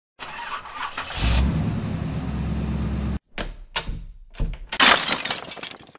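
Intro sound effects of an engine starting and running steadily, cut off abruptly about three seconds in, followed by a few short sharp hits and a louder burst of noise near the end.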